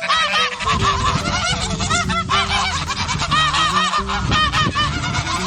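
Geese honking: many short, arched honks overlapping in quick succession, like a flock calling.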